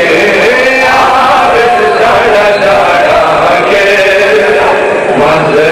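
Many men's voices chanting a Pashto noha (mourning lament) together, loud and continuous.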